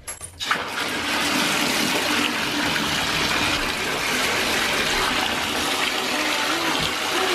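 Bathtub tap running into a shallow bath: a steady rush of water that starts about a third of a second in.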